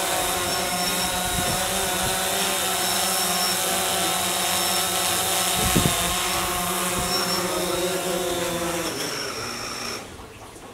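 DJI Phantom quadcopter's propellers buzzing steadily as it hovers low, with a short thump a little before six seconds in. The drone then lands and its motors wind down and stop about ten seconds in.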